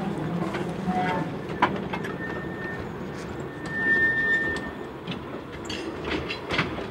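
Two-foot gauge railway carriages rolling past on curved track: a steady rumble with irregular clicks from the wheels over the rails, and a high steady wheel squeal for a couple of seconds in the middle.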